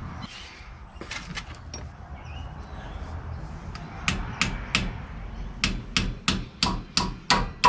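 Hammer striking metal: three blows about four seconds in, then a quicker run of about eight strikes, roughly three a second, each with a brief metallic ring.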